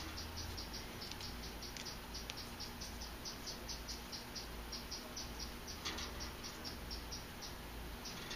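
A cricket chirping steadily, short high chirps about four to five a second, with a faint click about six seconds in.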